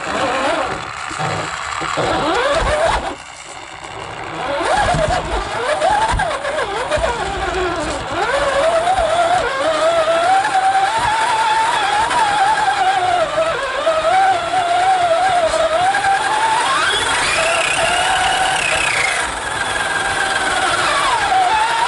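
Radio-controlled car's motor whining as it drives, its pitch rising and falling with the throttle, with a brief drop about three seconds in and one higher, longer rev a little past two-thirds of the way through.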